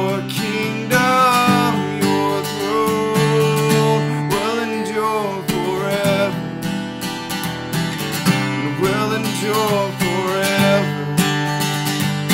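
An acoustic guitar is strummed steadily in a worship-song accompaniment. A man's voice carries a wavering melodic line over it in several phrases.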